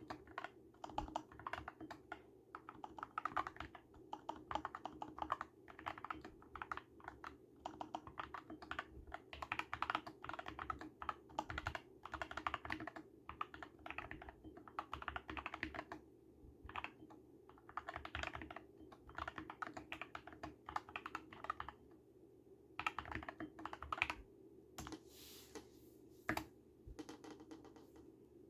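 Typing on an Epomaker SK64 mechanical keyboard with lubed Gateron Brown tactile switches, tape-modded PCB and Holee-modded stabilizers. Quick runs of keystrokes come in bursts, broken by brief pauses.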